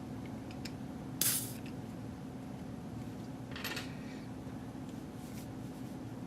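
Short hissing bursts of DeoxIT contact cleaner sprayed onto the router switch's pitted, corroded contacts: one about a second in, another past the middle and a faint one near the end, over a steady low hum.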